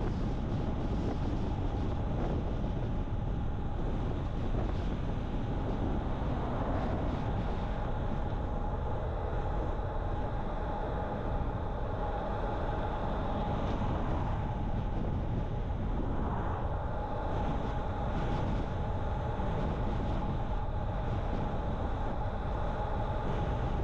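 A car driving at road speed: a steady rumble of tyres, engine and wind, with a faint steady whine above it.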